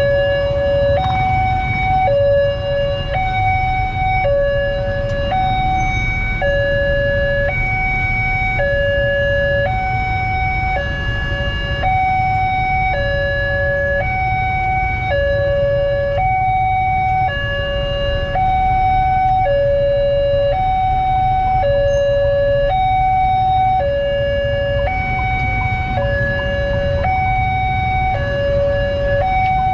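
Level-crossing warning alarm sounding a steady electronic two-tone hi-lo pattern, one high and one low tone about every 1.3 seconds, signalling that the crossing is closed for an approaching train. Under it, the low rumble of idling vehicle engines waiting at the crossing.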